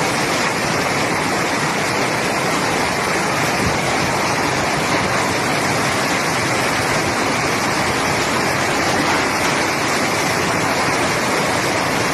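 Fast-flowing floodwater rushing, a loud, steady, unbroken rush of water.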